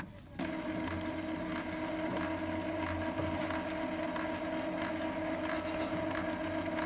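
Epson L3150 ink-tank printer's internal motor starting about half a second in and running steadily as a humming whir with faint ticks, part of a power-cleaning cycle that flushes ink through the print head.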